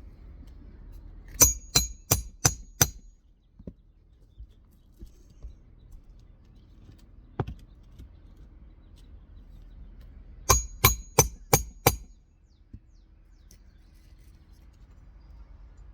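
Hammer striking metal in two quick runs of five blows each, with a short metallic ring on each blow, typical of roofing nails being hammered while a 3-tab asphalt shingle is worked on.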